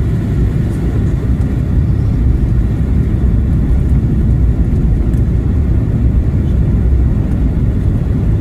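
Airplane cabin noise: the steady, loud low rumble of the aircraft in flight.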